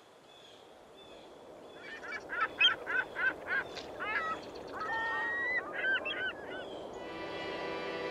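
Water birds honking: a quick run of about six short honks a couple of seconds in, then a few longer calls that bend in pitch, over a steady hiss that grows louder. Sustained music tones come in near the end.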